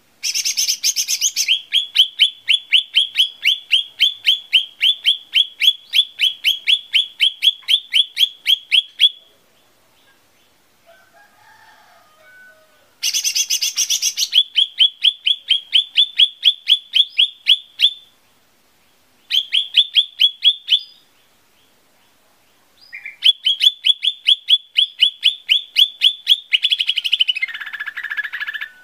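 Cucak ijo mini (small green leafbird) singing in four bouts: fast runs of sharp, repeated whistled notes, about four a second, each run opening with a brief buzzy burst. Near the end the last run breaks into lower, rougher notes.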